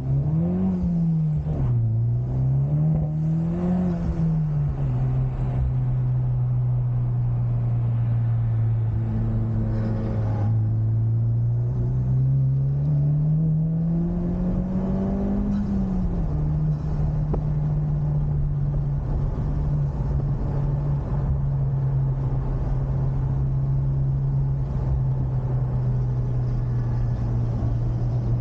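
Honda Civic Type R's turbocharged four-cylinder engine under way, revving up and dropping with two quick gear changes in the first few seconds. It then holds steady, climbs again to an upshift about sixteen seconds in, and runs at steady revs after that, with constant road noise beneath.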